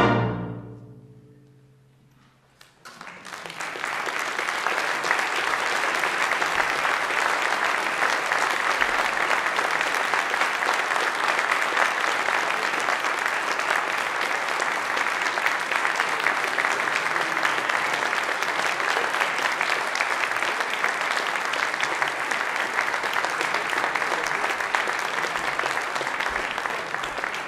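The last chord of an orchestral piece with timpani rings out and fades over about two seconds. Then, about three seconds in, audience applause starts and goes on steadily.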